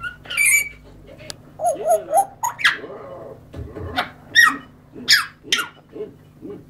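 African grey parrot calling: a rapid string of short squawks, clicks and sharp downward-sliding whistles, about a dozen in all, with the loudest call a little past the middle.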